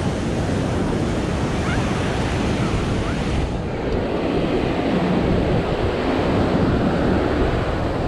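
Steady wash of ocean surf with wind buffeting the microphone; the high hiss thins out about halfway through.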